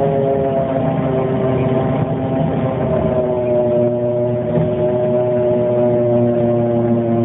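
1998 Dennis Dart bus running, giving a steady drone made of several tones at once that slowly shift a little in pitch: the weird noise this bus has been making.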